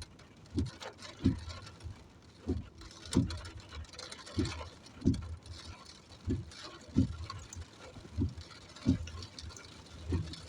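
Regular low thumps in pairs, about two pairs every four seconds, over a faint steady patter.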